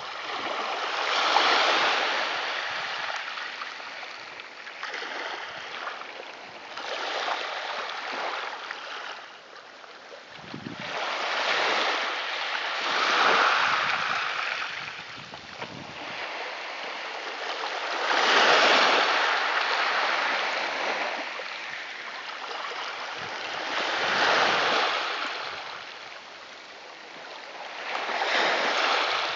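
Atlantic sea waves washing in, each wave a rising and falling rush of surf noise, one about every five to six seconds.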